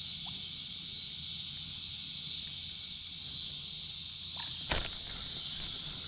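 Steady, high-pitched chorus of crickets and other insects, with a couple of brief knocks about four and a half seconds in.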